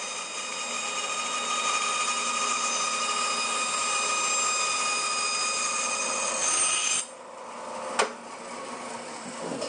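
Bandsaw cutting through a wooden block to form one side of a dovetail tail, with a steady cutting noise and a high whine. About seven seconds in the blade clears the cut and the saw runs on more quietly; a single click follows about a second later.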